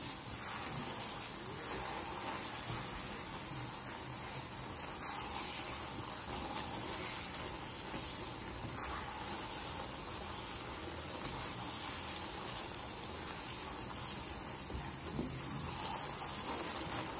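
Steady sizzling and bubbling of thickened custard halwa cooking in ghee in a nonstick kadhai, stirred with a silicone spatula. The halwa is at the stage where it is starting to release its ghee.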